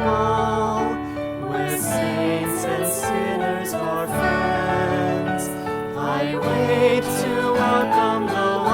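A worship song: singing over instrumental accompaniment, with the voice holding notes with vibrato.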